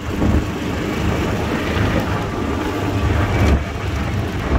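Small open utility vehicle driving along a gravel road: its engine runs steadily and the tyres roll over gravel, with wind rumbling on the microphone.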